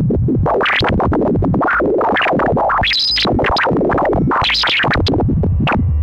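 Plasma waves in the solar wind recorded by NASA's Parker Solar Probe and turned into audio: a loud, dense run of quick, overlapping chirps and swoops rising and falling in pitch, with high whistling streaks about three seconds in and again a little after four seconds.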